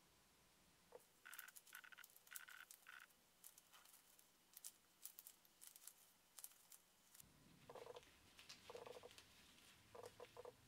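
Faint squeaks and rubbing of rubber-gloved hands working two-part epoxy putty: a few higher squeaks in the first seconds while kneading it, then lower, longer squeaks from the second half on as the putty is pressed into place.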